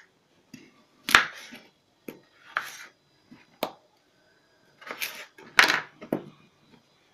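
Kitchen knife cutting peeled potatoes into quarters and knocking on a plastic cutting board: about seven sharp chops at uneven intervals, the loudest about a second in and again near the end.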